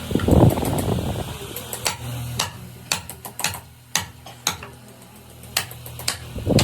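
Scattered sharp taps and knocks over a steady low hum, with a louder rough scraping noise about the first second.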